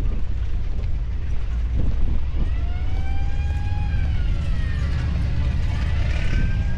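Leopard AS1 tank's V10 diesel engine running with a deep, steady rumble. From about two and a half seconds in, a whine rises and falls in pitch twice over the rumble.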